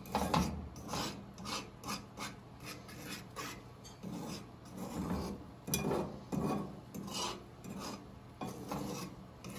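Fork scraping and stirring eggs in a metal frying pan, in many short, irregular strokes.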